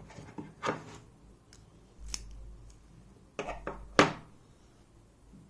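A few scattered metal clicks and scrapes of lock tools working an EVVA 3KS cylinder whose core is stuck and won't slide out. The sharpest click comes about four seconds in.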